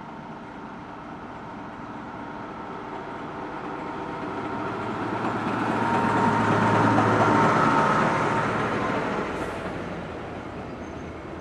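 ÖBB class 2062 diesel locomotive passing close by at low speed. Its engine grows louder as it approaches, is loudest as it goes past, then fades. The coaches follow, rolling by on the rails.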